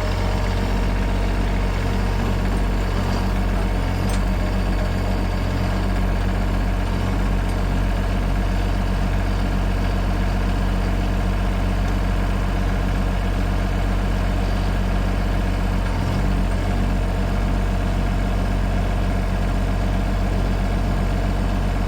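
Sawmill's gasoline engine running steadily at an even pitch.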